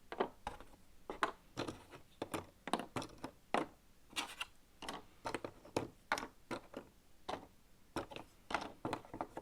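Cardboard jigsaw puzzle pieces being turned over and set down on a table while they are sorted: a steady run of light clicks and taps, two or three a second.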